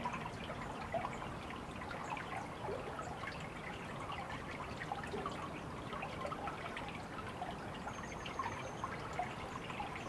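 Trickling, dripping water: a steady low bed of many small irregular drips and splashes.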